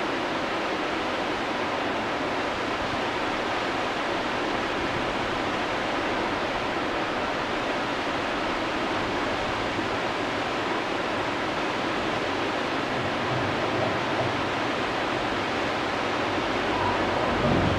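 Steady rush of whitewater from a river rapid and standing wave, a constant noise of churning water that swells a little near the end.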